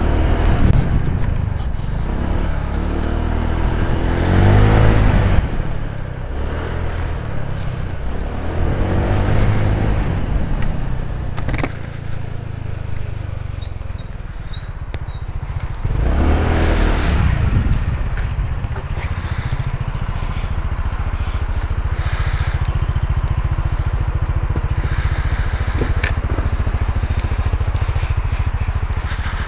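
Honda PCX125 scooter's 125 cc single-cylinder engine heard from inside a full-face helmet, with wind rushing past. The engine note rises and falls twice as the throttle opens and closes, then runs on steadily near the end.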